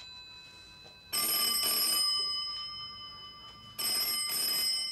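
Landline telephone ringing: two rings, each about a second and a half long with a short break in the middle, like a British double ring.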